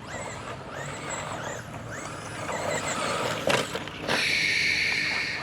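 Traxxas Slash 2WD RC truck's electric motor whining as it drives, rising and falling with the throttle. A sharp knock comes a little past three seconds in, and from about four seconds in there is a steady high whine.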